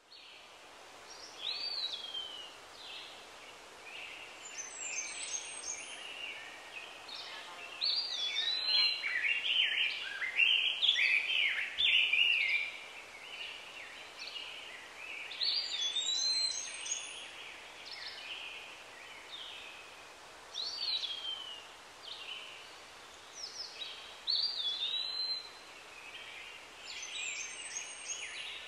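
Several birds singing and calling, with short sliding whistled phrases repeated throughout and the busiest chorus about eight to thirteen seconds in, over a faint steady hiss.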